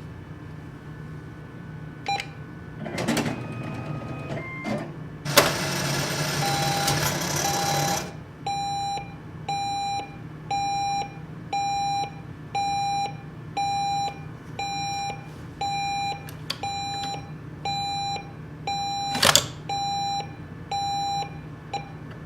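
ATM cash machine in use: a keypad beep, a few mechanical clicks, and a whirring, rattling run of about three seconds from the dispenser mechanism. Then a long steady series of short electronic beeps, a little faster than one a second, with a single sharp click near the end, all over a low machine hum.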